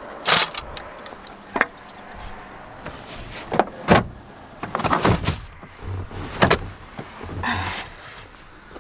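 A series of sharp knocks and clatters, with a short burst of rustling near the end: camping gear and bags being handled and shifted around in the back of an SUV, with seats folded flat.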